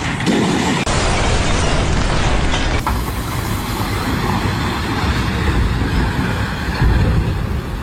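Loud, steady rumble of running machinery, broken by abrupt edit cuts about a second in and again near three seconds.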